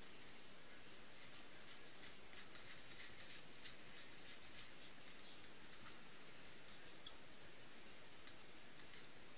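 Faint small metallic clicks and ticks of a hex driver turning a socket-head engine mounting screw into the chassis. A quick cluster of ticks in the first half is followed by a few scattered clicks, over a steady low hiss.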